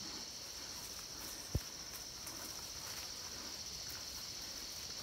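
Steady, high-pitched chorus of insects such as crickets or cicadas. A single short low thump sounds about one and a half seconds in.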